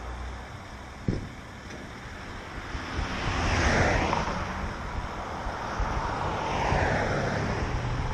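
Vehicles passing on the road, their tyre and engine noise swelling and fading twice, once about four seconds in and again near seven seconds. A short knock comes about a second in.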